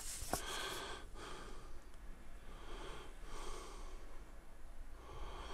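A person breathing quietly through the nose: three slow breaths about two seconds apart, with a faint tick near the start.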